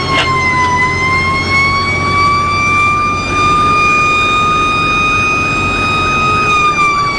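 Fire truck siren in a slow wail: its pitch dips about a second in, climbs slowly and holds, then falls again near the end. Under it is the low rumble of the truck's engine and road noise.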